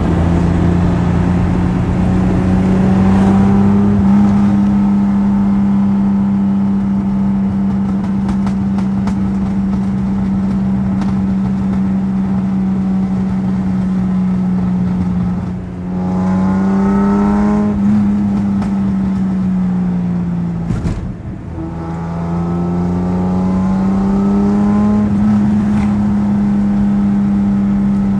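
Datsun 280Z's straight-six running through a loud exhaust, its note climbing in pitch several times, with short dips in level about halfway and about three-quarters through before it rises again. Sharp pops and crackles from the exhaust are scattered through it.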